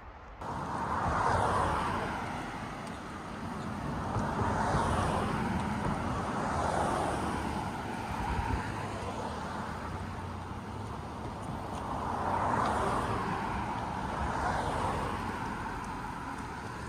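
Cars passing on the road one after another, their tyre and engine noise swelling and fading about five times.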